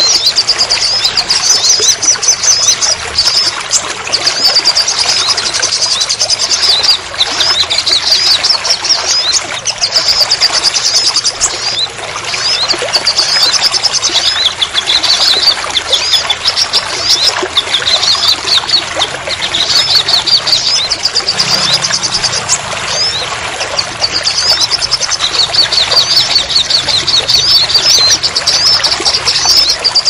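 Steady rain falling, with high-pitched, rapid twittering birdsong over it in repeated phrases of a second or two.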